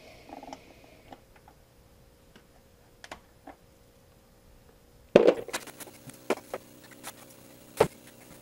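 Small plastic caps and fittings of a Trojan HydroLink battery watering kit being pressed into place on the battery tops: scattered faint clicks, then a sharp knock about five seconds in and a few louder clicks and taps after it.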